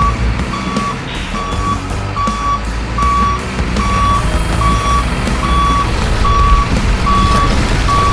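Truck reversing alarm beeping: one steady tone repeated evenly, a little faster than once a second, over a continuous low engine-like rumble.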